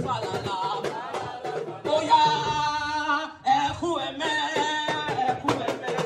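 Music with a singing voice over percussion; the singer holds one long note about two seconds in.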